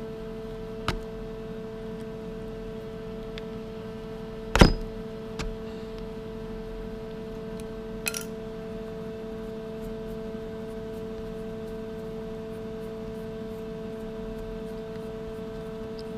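A steady hum with a few sharp metallic clicks from small metal parts being handled. The loudest click comes about four and a half seconds in, with lighter ones about a second in and around eight seconds.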